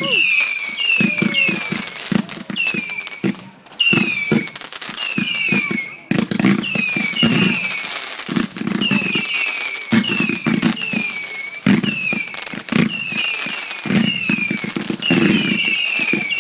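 A fireworks display going off close by: a quick run of short falling whistles, about two a second, over a busy mix of pops, bangs and crackling from the launched shells.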